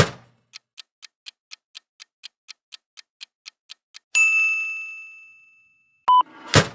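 Quiz countdown sound effect: clock ticking about four times a second, then a bell ding about four seconds in that rings out for over a second. Near the end come a short beep and a loud whooshing hit.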